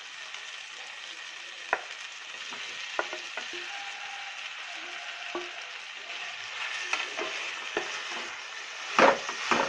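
Onion-tomato masala sizzling steadily in a frying pan, with a wooden spatula stirring and scattered knocks and scrapes against the pan; the loudest knocks come near the end.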